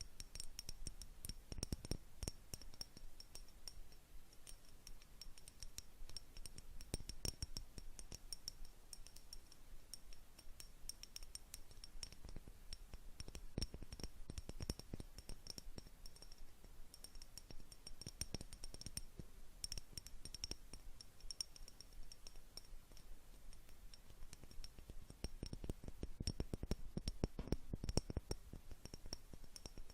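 A jar tapped rapidly and irregularly for ASMR: a dense stream of light taps and clicks with a faint high ring after them, a little busier and louder near the end.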